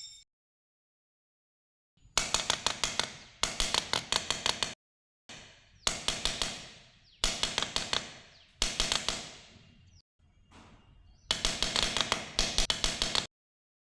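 Rapid, evenly spaced clicks, about ten a second, in six short bursts that each stop abruptly.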